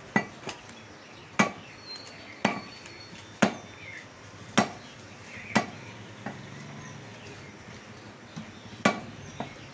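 Butcher's cleaver chopping beef on a round wooden log chopping block: sharp chops about once a second, then a pause of about three seconds before another chop near the end.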